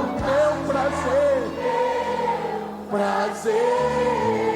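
Live gospel worship music: a lead singer and congregation choir singing a held line over a steady band accompaniment.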